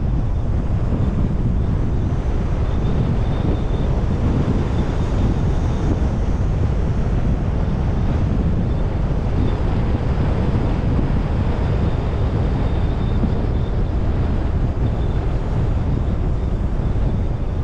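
A car driving on the road: steady low rumble of road and wind noise, with wind buffeting the microphone. A faint high whine comes and goes.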